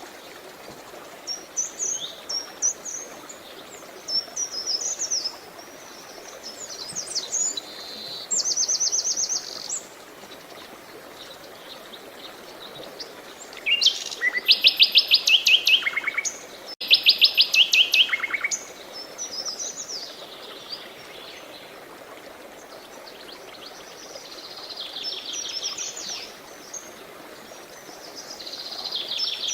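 Several songbirds singing and chirping in short phrases over a steady rush of flowing water. About halfway through come two loud, fast trills of rapidly repeated notes, the loudest sounds here.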